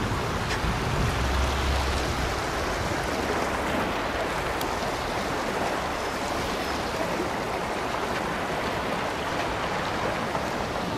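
Stream water rushing steadily over rocks, with a low rumble in the first couple of seconds.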